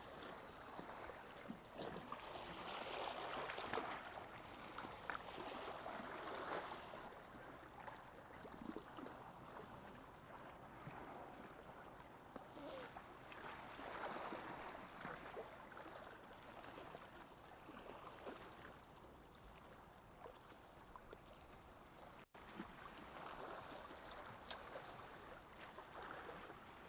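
Faint small waves lapping and sloshing against shoreline rocks in shallow sea water, swelling and fading every few seconds.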